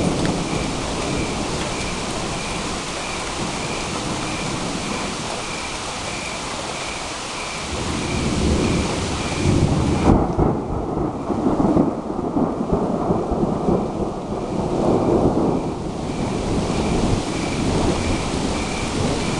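Steady rain with a long roll of thunder that builds about a third of the way in, rumbles for some eight seconds and fades away.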